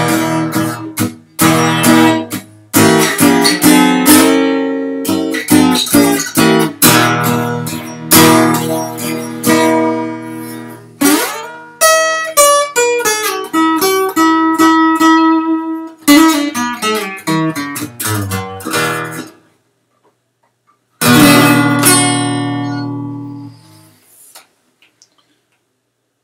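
Acoustic guitar played solo: strummed chords mixed with single picked notes, stopping about twenty seconds in, then one last chord struck and left to ring out.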